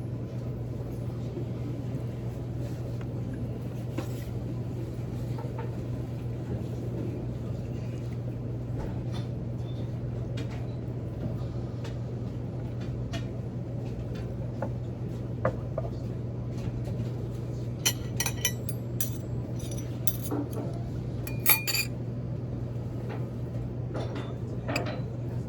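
Cutlery clinking against plates and bowls during a meal, in scattered light clicks, with a few louder clinks about eighteen and twenty-one seconds in, over a steady low hum.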